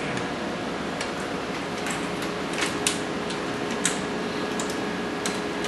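Scattered short metallic clicks and ticks from the laser housing and its mounting hardware being handled as the unit is fitted to a ceiling plate, over a steady room hum.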